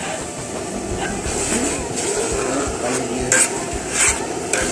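A big batch of beaten eggs sizzling in a large steel wok while a metal ladle stirs and scrapes through them, with a few sharper scrapes of the ladle against the wok near the end.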